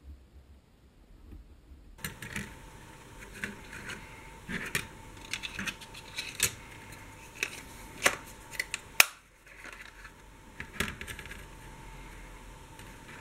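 Metal spork being handled in and out of its orange plastic case on a table: a run of clicks, taps and light clinks starting about two seconds in, the sharpest about nine seconds in.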